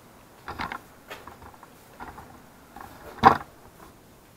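A few light clicks and knocks, with one sharper knock about three seconds in.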